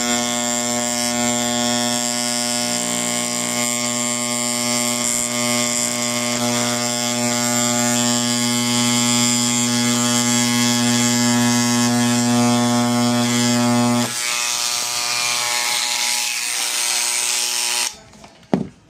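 An electric motor running steadily with an even hum. About fourteen seconds in the hum fades to a hiss, which cuts off suddenly near the end, followed by a couple of metallic clinks.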